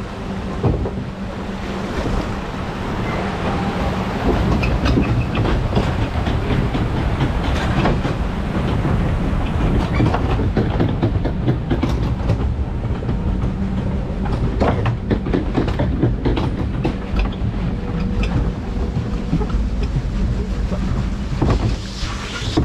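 Log flume boat riding a mechanical conveyor, most likely the lift hill, with a loud, steady rumble, faint hum and a continuous rattle of clattering knocks.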